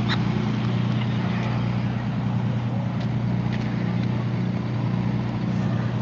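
Fire apparatus diesel engine running steadily at the scene, a constant low hum that holds unchanged, with a few faint ticks over it.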